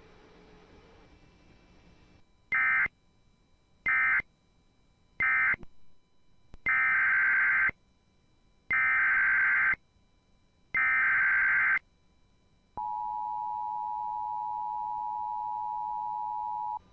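Emergency Alert System signalling: three short bursts of SAME digital data (the end-of-message code closing the previous alert), then three longer SAME header bursts announcing the next alert. After that comes the steady two-tone EAS attention signal for about four seconds.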